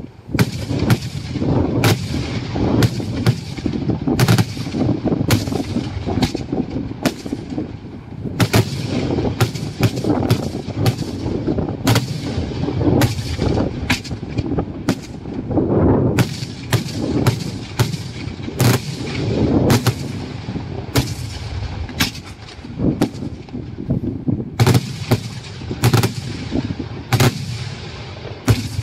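Daytime aerial fireworks shells being launched from the ground and bursting overhead in a continuous run of sharp bangs, often several a second, with a low rolling rumble and echo between them.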